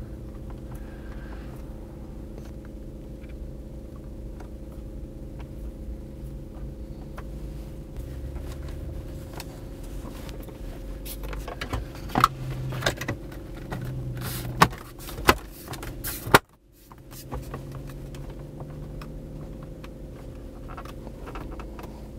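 Plastic upper dash trim strip being pressed back into place, its clips snapping in with a few sharp clicks in the second half, over a steady low hum inside the car.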